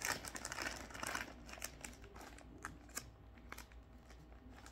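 Plastic candy pouch crinkling as it is handled, with scattered crackles that are thickest in the first second or so and thin out after.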